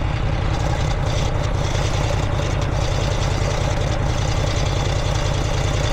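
1965 Harley-Davidson Sportster XLCH's 883 cc V-twin engine running steadily. This is the bike's odd noise, which sounds like a wheel rubbing and comes with heavy vibration; the owner suspects the engine mounts, spaced with washers and without rubber.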